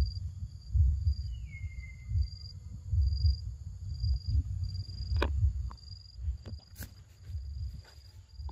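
Forest insects: a steady high buzz with a high chirp repeating at an even pace, under a gusty low rumble of wind on the microphone. A single falling whistle comes about a second and a half in, and a few sharp clicks fall in the second half.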